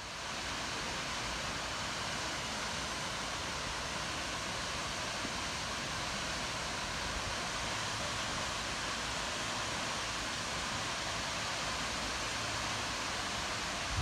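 Waterfall splashing down into a pool: a steady rushing hiss that comes in within the first half second and holds even throughout.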